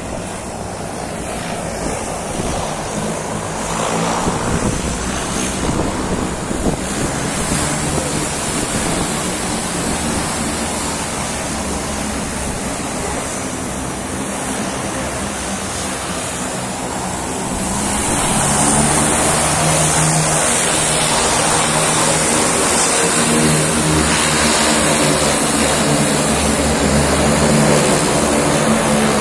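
Turboprop engines of a Twin Otter seaplane running, a steady drone with a high whine that grows louder about 18 seconds in.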